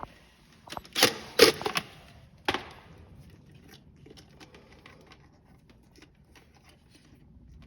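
Handling noises from work under a sink: three short loud scrapes or knocks in the first few seconds, then faint scattered clicks.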